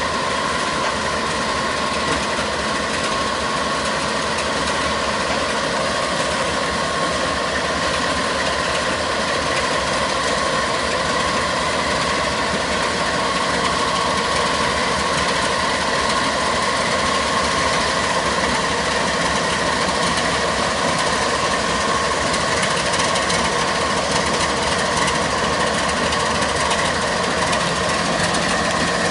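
Diesel freight locomotives, a Canadian Pacific unit followed by a CSX unit, running slowly past at low throttle. A steady engine hum with a high, even whine over it, growing a little louder about halfway through.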